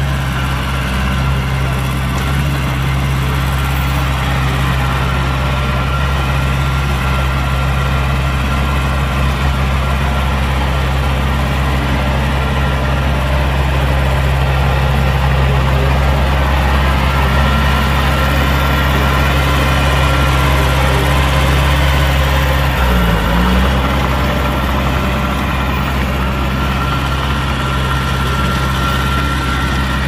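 Heavy diesel engine of earthmoving machinery running steadily at low revs. A thin steady whine sits above it. The engine note dips briefly and recovers about three-quarters of the way through.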